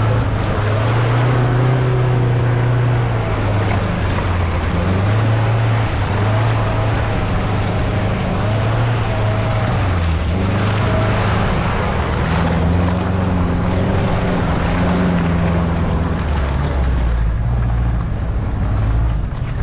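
An off-road 4x4's engine running under load, its pitch stepping up and down with the throttle over a steady rushing noise. The engine note drops lower near the end.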